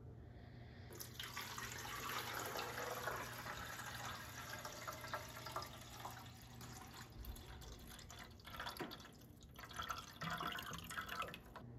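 Water poured from a glass carafe into a small clear tank, splashing and trickling as the tank fills. The pour starts about a second in and eases off briefly a couple of times before picking up again.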